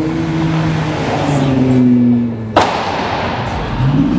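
Car engine running as cars drive past, its pitch falling and then rising again as it revs near the end, with a single sharp crack about two and a half seconds in.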